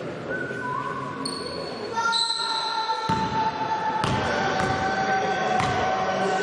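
A basketball bouncing on a hard hall floor, several separate bounces in the second half, over indistinct voices and a steady, slowly wavering high tone.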